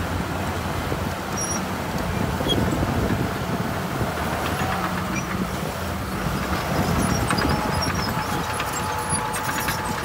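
Heavy construction machinery's diesel engine running steadily under a continuous low rumble.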